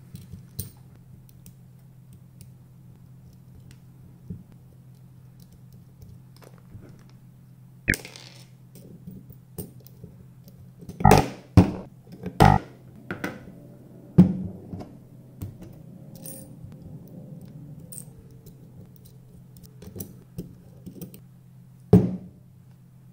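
Small metal bus bars and moulded plastic cell caps of a Vruzend 18650 battery kit clinking and clicking as they are fitted onto the terminals of a three-cell pack. Scattered sharp knocks, bunched together about eleven to thirteen seconds in, over a faint steady low hum.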